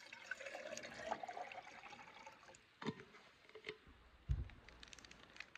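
Water pouring from an insulated bottle into a stainless steel camp cup, the pitch rising as the cup fills. A sharp click follows near the three-second mark, then a dull thump about four seconds in.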